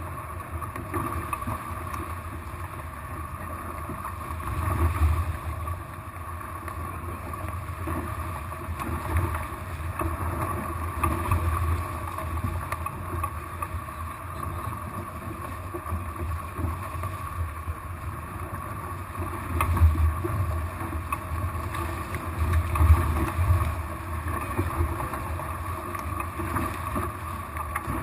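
Water rushing and slapping past the hulls of a small sailing catamaran, with wind buffeting the microphone. Low rumbling surges swell and fade every few seconds, the strongest about two-thirds of the way through.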